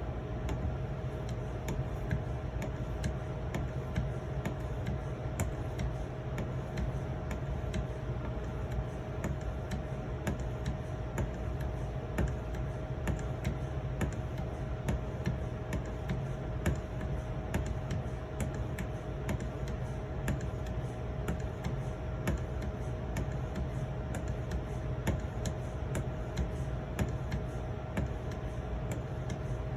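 Edge Pro 2300-grit sharpening stone stroked repeatedly along a knife's edge, giving a continuous string of light, irregular clicks and scrapes as the stone meets and leaves the blade. A steady low hum runs underneath.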